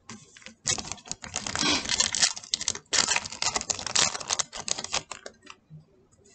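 Foil Yu-Gi-Oh booster pack wrapper crinkling and tearing as it is ripped open, a dense run of crackles starting about a second in and stopping about five and a half seconds in.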